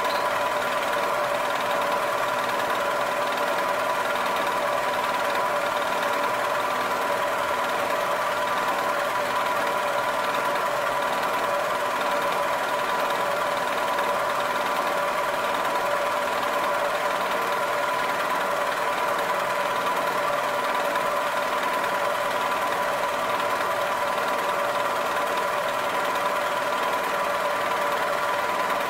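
Milling machine spindle running steadily with a whine, its end mill cutting a curved radius in a metal block as the rotary table is turned.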